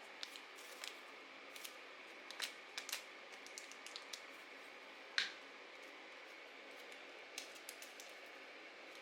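Scattered small clicks, taps and rustles of paper and craft materials being handled, over a faint steady hiss, with one sharper tap about five seconds in.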